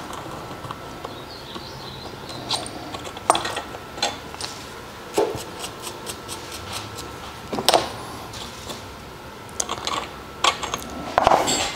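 Metal hand tools clicking and clinking as they are handled and set down on a workbench: a tap and T-handle tap wrench being lifted out of a freshly tapped hole in an aluminium casting and laid aside. Irregular sharp clicks, the loudest about three, five and seven and a half seconds in, with a small cluster near the end, over a faint steady hum.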